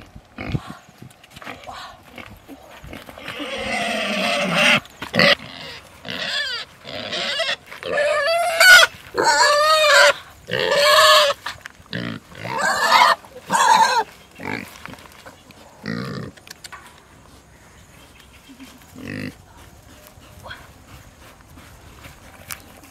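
Young pig squealing while it is held and carried: one long squeal about three seconds in, then a run of short, shrill, arching squeals from about eight to fourteen seconds. The squeals stop after that.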